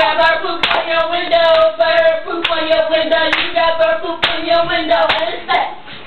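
Girls' voices chanting a cheer in a sing-song way, with long held notes, punctuated by sharp hand claps.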